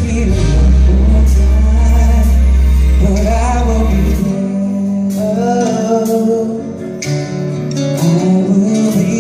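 Live band music with singing held on long notes over guitar, and a deep bass note that drops out about four seconds in.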